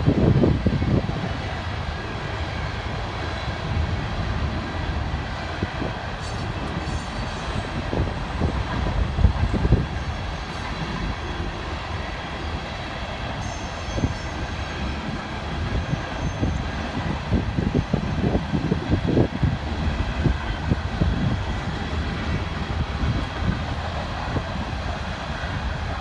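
Freight train of oil tank cars rolling past: a steady rumble of wheels on rail with scattered clicks and knocks, and a few faint high squeals.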